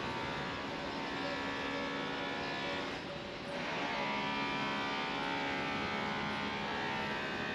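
A motor vehicle engine running in the street as a steady, many-toned hum, dipping briefly about three seconds in.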